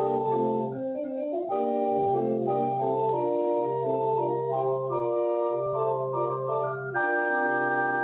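Organ postlude: a small cabinet organ playing moving chords over separate held bass notes, settling onto a full held chord about seven seconds in.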